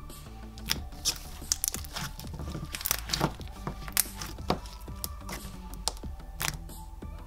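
Thick slime pressed, poked and folded by fingers, giving irregular sharp clicking pops and crackles, over soft background music.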